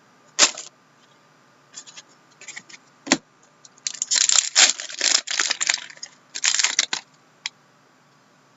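Trading cards and their packaging being handled on a table: short scrapes and clicks, a single sharp knock about three seconds in, then a stretch of rustling and crinkling from about four to seven seconds in.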